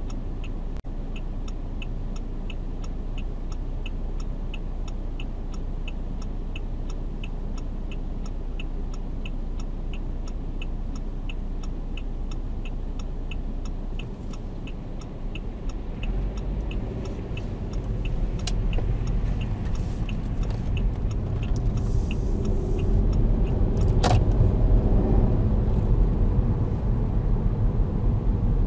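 Saab 9-5's 2.3-litre turbo four-cylinder idling at a standstill, heard inside the cabin, with the turn-signal indicator ticking about twice a second. After about fifteen seconds the ticking stops and the car pulls away, its engine and road noise rising as it gathers speed, with one sharp knock near the end.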